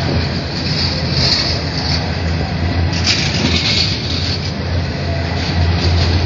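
Coal hopper wagons of a freight train rolling past at close range: a loud, steady rumble and rattle of wheels on rail, with a brief louder high-pitched rush about three seconds in.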